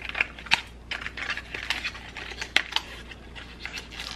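Small cardboard product carton being handled and opened by hand: scattered sharp clicks and short rustles of the packaging.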